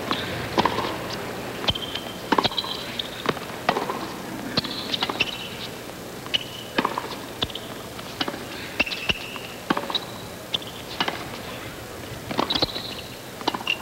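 Tennis rally on a hard court: the ball struck back and forth by rackets, with sharp pops at irregular intervals, amid short high squeaks.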